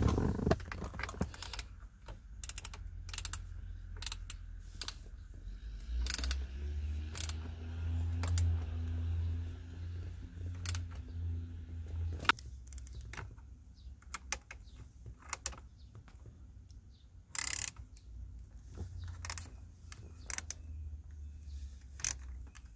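Irregular clicks and taps of a hand tool turning the T30 Torx screws that hold a steering-wheel airbag module. A low steady hum joins about six seconds in and stops abruptly about twelve seconds in.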